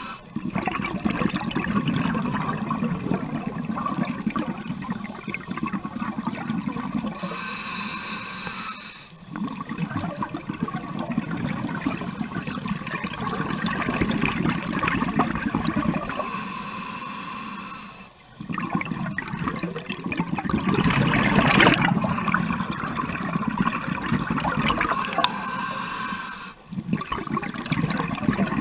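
Scuba regulator breathing, heard underwater: a hissing inhale through the regulator about every nine seconds, each followed by a long bubbling rush of exhaled air. Three breaths.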